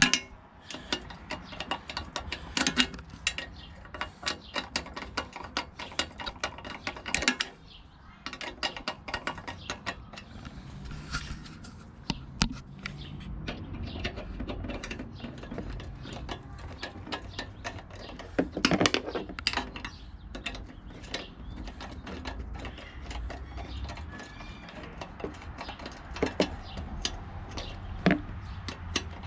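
Ratchet wrench clicking in quick runs as bolts are tightened, with scattered knocks and clinks of tools and metal parts.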